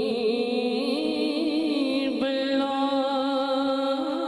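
A man singing a naat into a microphone, drawing out long held notes that waver slowly in pitch, with no drums. About two seconds in he moves to a new, higher sustained note.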